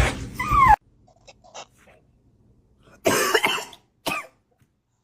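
A baby dragon's cartoonish creature voice: a short squealing call with sliding pitch, then, after a pause, a harsh cough and a second, shorter cough, as its fire breath misfires.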